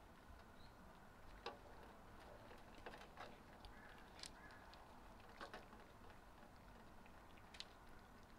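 Faint, scattered clicks and ticks of two cats licking an aluminium food tray, over quiet outdoor background.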